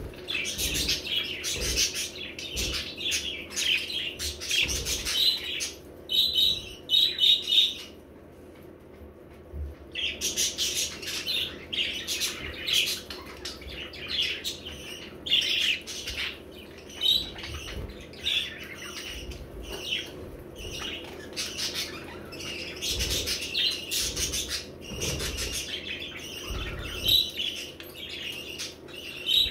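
Budgerigars chirping and chattering in quick, busy high twitters, with a pause of about two seconds around eight seconds in.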